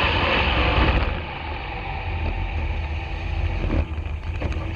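Chevy LUV drag truck's Chevy V8 engine running, heard from inside the cab. It is loud for about the first second, then drops to a quieter, steady rumble.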